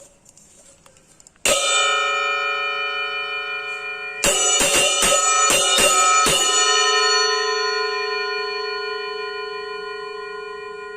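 A 24 cm Balinese cengceng cymbal struck once, then in a quick run of about eight strikes, each leaving a bright, metallic ring of many overtones that slowly fades.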